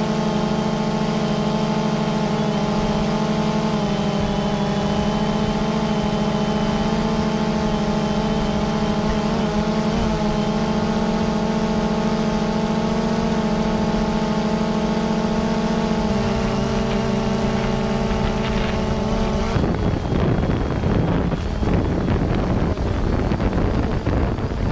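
Quadcopter drone's rotors humming steadily, the pitch stepping down a little about two-thirds of the way in. Near the end the hum gives way to a rough, fluttering rushing noise.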